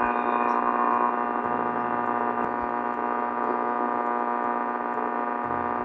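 A steady, buzzy test tone from the Philco 46-350 radio's loudspeaker as it receives the signal generator during alignment, while trimmer capacitor C10 is tuned for 580 kc. The tone is a little stronger in the first second.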